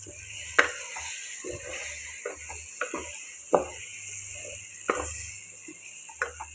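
Lentils being stirred into tomatoes and drumsticks in a cooking pot, the stirring utensil knocking against the pot a few times over a steady sizzle from the hot pot. The sizzle fades after about five seconds.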